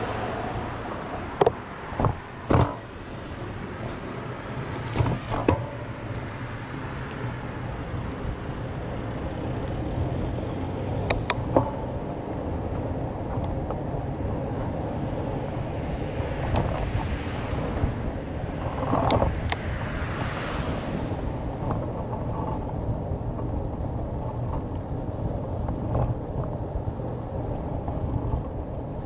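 A bicycle ride along a paved path beside a road, heard from the moving bike: steady wind on the microphone and rolling rumble, with passing road traffic. Three sharp knocks come in the first few seconds and two more about eleven seconds in, like the bike jolting over bumps, and a louder swell rises and falls about two-thirds of the way through.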